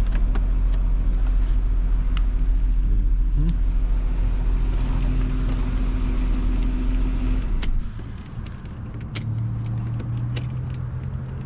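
Porsche Cayenne's engine idling steadily, heard from inside the cabin, then switched off with a click nearly eight seconds in. A few sharp clicks from the ignition and key follow, over a quieter steady hum.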